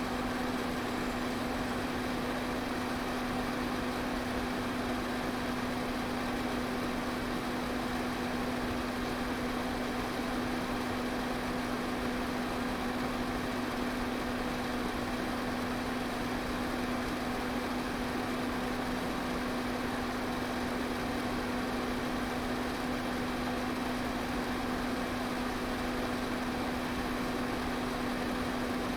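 Electric pedestal fan running steadily: a constant rush of air with a steady motor hum underneath.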